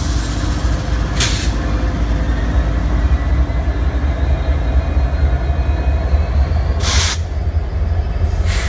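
Freight train's diesel locomotive giving a steady low rumble. Short loud hisses of air break through about a second in, around seven seconds in and again near the end.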